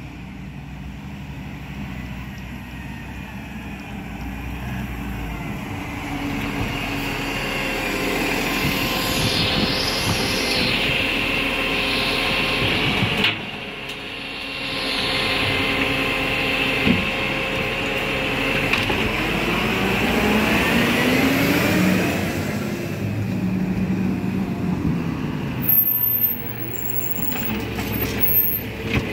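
2022 Iveco Stralis side-loading garbage truck with a Jay solo body drives up and works at the kerb: its diesel engine grows louder as it nears, with a high whine from the running hydraulics. As the arm grabs and lifts a wheelie bin there are several sharp metallic clunks near the end.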